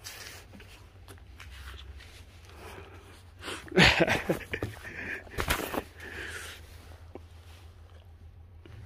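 Rustling and bumping of a Tibetan Mastiff puppy's fur against the phone as it pushes its head up to the microphone, loudest about four seconds in, with another bump about a second and a half later.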